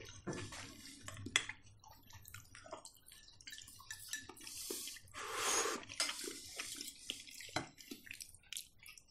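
Faint eating sounds at a table: scattered clicks and taps of cutlery on plates, with wet mouth sounds of chewing. A short, louder noisy sound comes about five and a half seconds in.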